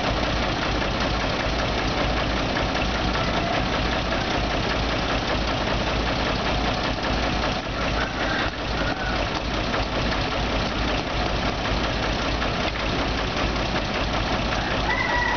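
Diesel engines of a mini excavator and a dump truck running steadily while soil is being loaded.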